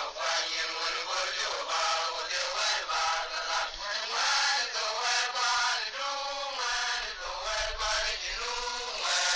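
A voice singing a melody, continuing throughout.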